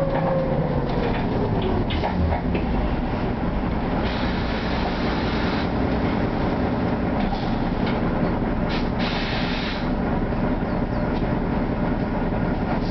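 Inside an Ikarus 412 low-floor city bus under way: a steady engine and road rumble with scattered rattles and clicks from the body and fittings. Two spells of hiss come about four and nine seconds in.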